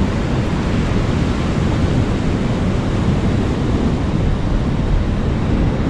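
Steady wind noise rumbling on the microphone, with sea surf washing underneath.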